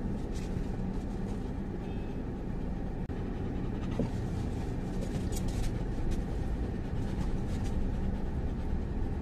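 Tata Altroz's engine running and rolling slowly, heard from inside the cabin: a steady low rumble with a few faint clicks.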